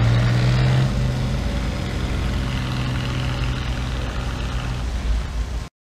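Engines of slow-moving parade vehicles, a police SUV and a vintage tractor, running as they pass: a steady low engine hum that drops somewhat in level about a second in, then cuts off suddenly near the end.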